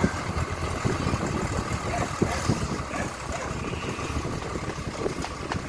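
Diesel engine of a road-repair tractor running steadily, with scattered short knocks and clatters; the sharpest knock comes about two seconds in.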